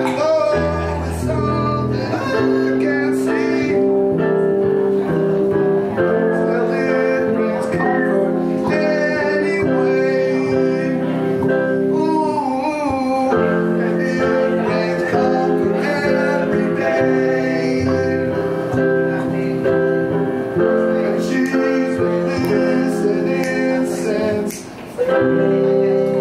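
Live song with electric keyboard chords and strummed acoustic guitar under sung vocals; the sound dips briefly shortly before the end.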